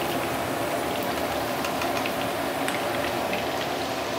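Prawns deep-frying in hot oil in a wok: a steady sizzle of bubbling oil with many small crackles and pops. The heat is at medium-high and the prawns are near the end of frying.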